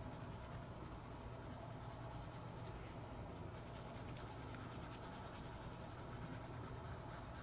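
Graphite pencil shading on sketchbook paper: faint, quick scratchy strokes as the lead is rubbed back and forth, over a low steady hum.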